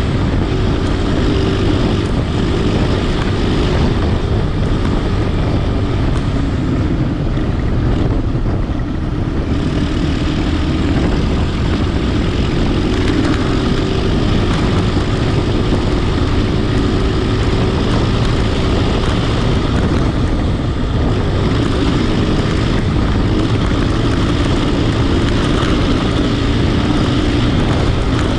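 Vehicle engine running steadily on the move, with heavy wind noise on the microphone.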